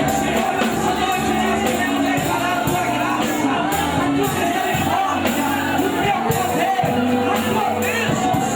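Live church band music with singing over it: drum kit, electric guitar, bass and keyboard playing steadily.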